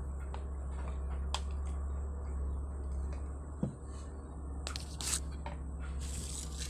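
Food being scooped and scraped with a plastic spatula from a glass serving bowl onto plates, with a few light clicks and knocks of dishes being moved. A steady low hum runs underneath.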